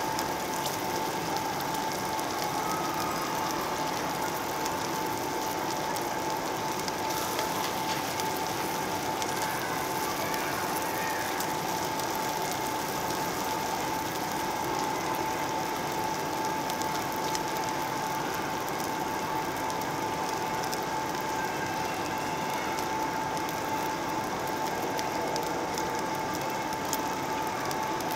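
Samgyeopsal (pork belly slices) sizzling in their fat on a round slotted tabletop grill plate: a steady dense crackle of fine pops. A steady high hum sits underneath.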